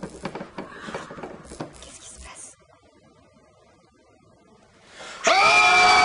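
Soft rustling and scraping for the first couple of seconds, then quiet, then about five seconds in a sudden, loud, high-pitched scream from a woman, held.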